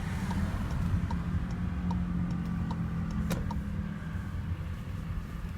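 Car with a 7-speed dry-clutch DSG gearbox pulling away from a stop, heard from inside the cabin: a steady low engine and drivetrain rumble. A light tick repeats about every 0.7 seconds, with one sharper click about three seconds in.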